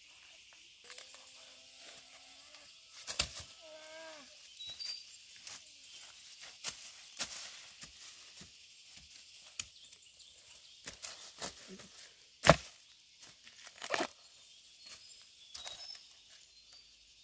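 A steady high insect drone over scattered knocks and clicks, with two loud sharp impacts in the second half and a few short pitched calls or voice sounds in the first few seconds.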